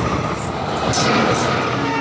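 A diesel-hauled passenger train passing with a steady rush of wheel and rail noise. The locomotive's horn starts sounding right at the end.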